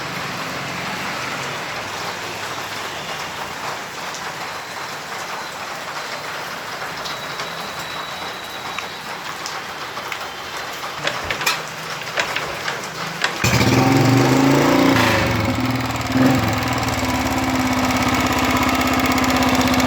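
A steady hiss with a few knocks near its end, then, about thirteen seconds in, the Royal Enfield Electra 350's single-cylinder engine starts and settles into a steady idle. The engine is running just after its tappets were cleaned and refitted, to check whether its tapping noise is gone.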